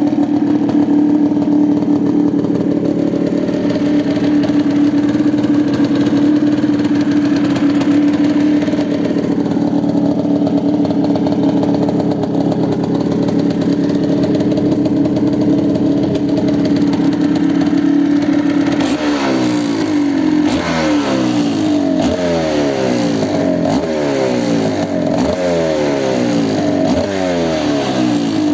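Yamaha DT200WR's two-stroke single-cylinder engine running steadily through its RSV expansion chamber and silencer. About two-thirds of the way through it is blipped repeatedly, about once a second, each rev dropping quickly back down.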